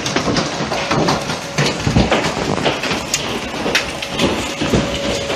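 Heavy hail pelting down, a dense irregular clatter of many hailstones striking the ground and porch over a steady rush.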